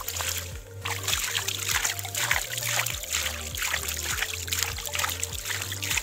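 A hand scooping and splashing muddy water out of a small seep hole dug in sand, clearing the dirty first water so clean water can seep in; irregular splashes and sloshes over low background music.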